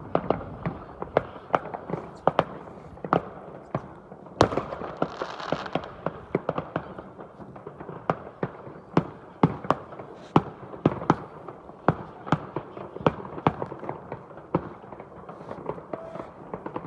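Distant fireworks going off: a continuous run of sharp bangs and cracks at irregular intervals, several a second, over a low rumble. A brief hiss comes about four and a half seconds in.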